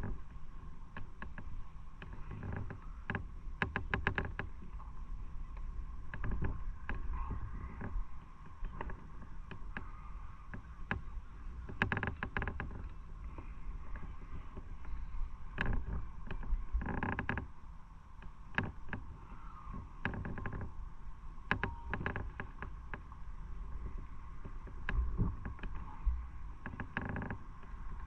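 Motorcycle on the move: a steady low rumble of engine and road noise, with irregular short clicks.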